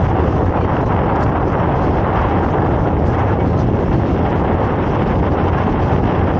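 A sightseeing boat's engine droning steadily underway, with wind rushing over the microphone.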